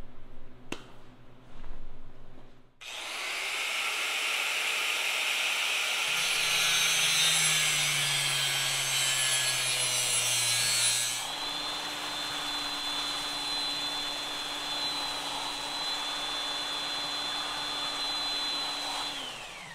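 Angle grinder cutting the threaded end off a steel pipe nipple, a loud hissing grind lasting about eight seconds after a few light handling knocks. Then a handheld belt sander runs with a steady high whine as the cut end is squared off, winding down just before the end.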